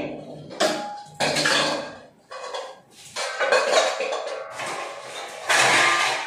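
Kitchen pots and metal utensils clattering as they are handled and set down: about six sharp clanks, each ringing briefly before it fades.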